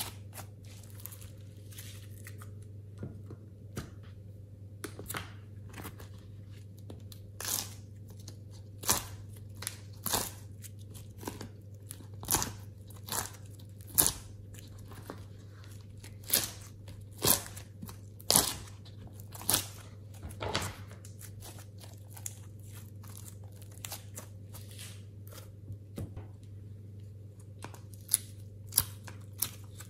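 Hands squeezing, pressing and peeling slime, making irregular sharp sticky pops and crackles, over a steady low hum.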